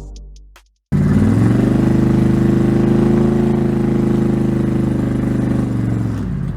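A car engine running steadily: it starts about a second in, climbs a little in pitch, then holds an even note.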